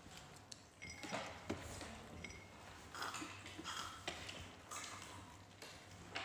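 Spoons and forks clinking lightly against plates and glasses a few times during a meal, with soft rustling over a low steady background hum.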